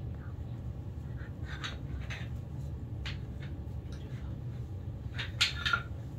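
Cloth rustling and a few light clacks of small wooden figures being handled and set down. The loudest clacks come near the end, over a steady low hum.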